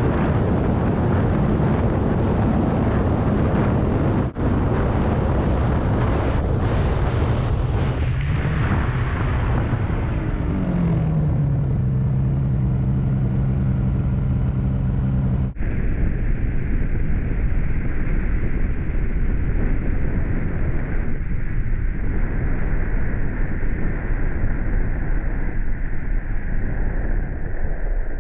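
Snowmobile engine running under way, heavy wind rush on the microphone over it; a little past ten seconds in the engine note rises and then holds steady. The sound cuts abruptly to a duller-sounding recording about halfway through.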